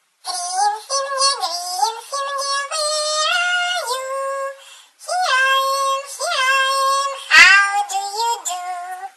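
High-pitched synthetic singing voice carrying a simple nursery-rhyme melody, held notes stepping and sliding between pitches. A quick upward sweep comes about seven seconds in.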